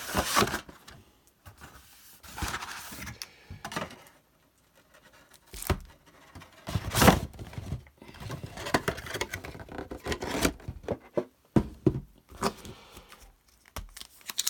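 Trading card box packaging being handled and opened: irregular crinkling, scraping and tearing of plastic wrap and card packs, in uneven bursts with short pauses.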